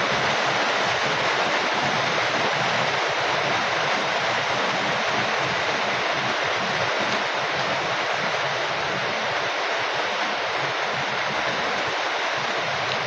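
Heavy rain falling steadily, a dense, even hiss of rain noise.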